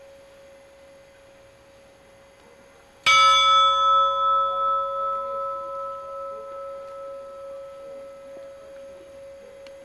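A faint steady tone hangs, then an Orthodox church bell is struck once about three seconds in. It rings on with many overtones and fades slowly with a wavering swell.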